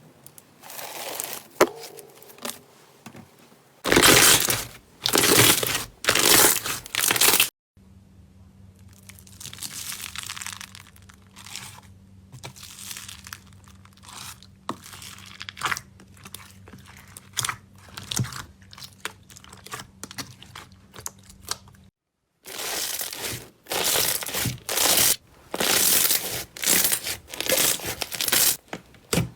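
Hands pressing and stretching slime in a string of short clips: quick crackles and pops, with abrupt cuts about four, eight and twenty-two seconds in.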